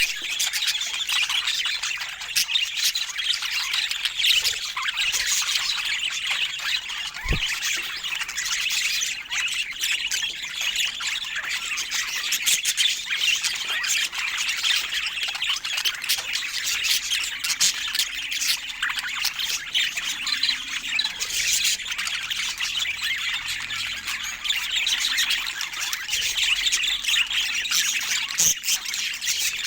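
Several budgerigars chattering and chirping without a break: a dense mix of short calls, squawks and clicks.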